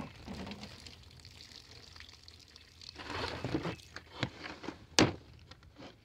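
Water being poured onto seedlings in plastic cell trays, trickling and splashing in uneven spells. A single sharp click about five seconds in.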